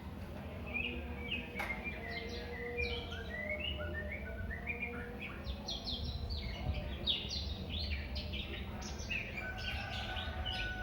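Medan-type white-rumped shama (murai batu) singing a relaxed, unbroken run of quick, varied whistles and chirps, over a low steady hum.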